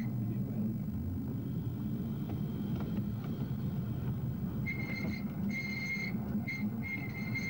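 Miniature tram running along narrow-gauge track: a steady low rumble, with a high whine that cuts in and out from about two-thirds of the way in.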